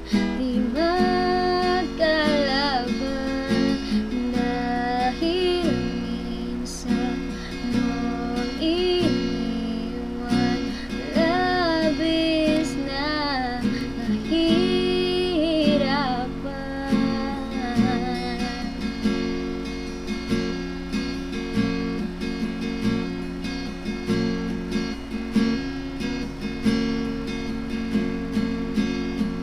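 An acoustic guitar strummed in slow chords, accompanying a woman singing a ballad. A little past halfway the voice drops out and the guitar strums on alone.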